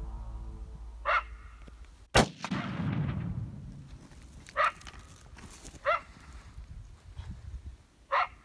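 A single rifle shot about two seconds in that echoes away across open ground. Short, sharp coyote barks come four times, spaced a second or more apart. Background music fades out over the first two seconds.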